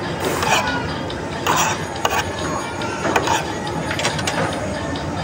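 Metal spoon and fork clinking and scraping against a plate in irregular strokes while eating, over a steady food court background hum.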